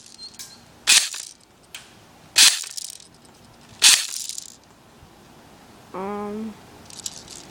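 Three single shots from an SG 550 airsoft gun, each a sharp crack, about a second and a half apart. A short vocal sound follows near the end.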